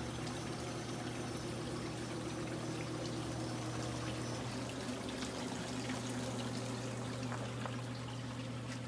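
Hot tub running: water pouring and splashing steadily, with a steady low hum underneath.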